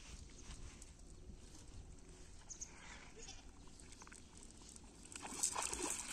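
A cast net swung and thrown, with water splashing as the thrower's feet step into shallow river water, starting about five seconds in; before that it is quiet, with only faint scattered animal calls.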